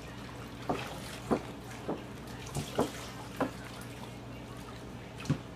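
Water splashing in a galvanized metal washtub as a dog is rinsed with water poured from a plastic jug: a run of short splashes through the first three and a half seconds and one more near the end, over a steady low hum.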